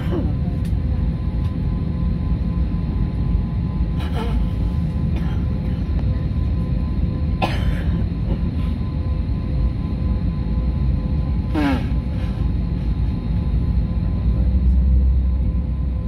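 Steady low rumble of a parked airliner's cabin, with a constant hum running under it. A few brief falling sweeps come every three to four seconds, and the low rumble swells near the end.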